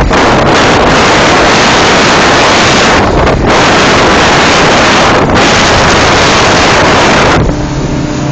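Heavy wind rushing over a phone's microphone on a motorboat underway across open sea, loud and steady with a few brief dips. About seven and a half seconds in, the wind noise falls away and the boat's engine comes through as a steady drone.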